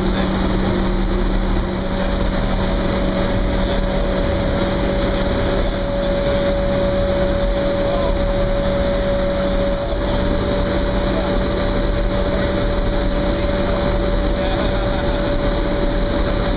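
Steady, loud machinery noise of a boiler room, with a constant low hum and a higher steady tone running over a dense rushing noise.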